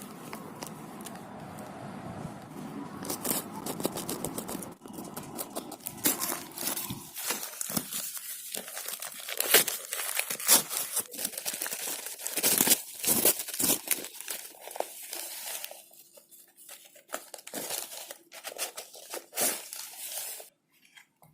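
Packaging crinkling and tearing as it is handled, with a steady hiss for the first few seconds, then many irregular crackles and sharp clicks that thin out near the end.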